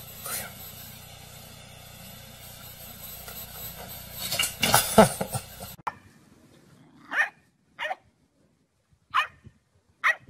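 Steady low room noise with one loud burst of noise about halfway through, then a dog giving four short single barks a second or so apart.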